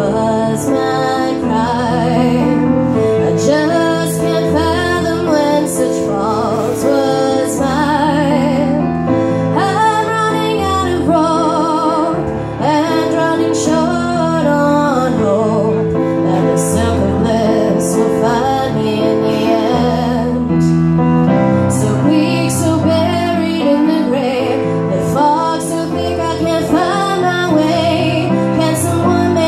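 A woman singing, with vibrato on held notes, while accompanying herself on a Yamaha keyboard.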